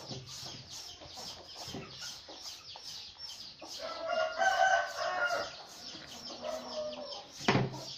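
Green papaya being shredded with a hand shredder: a quick scraping stroke about three times a second. About four seconds in, a chicken calls loudly for a second or two, and a sharp knock comes near the end.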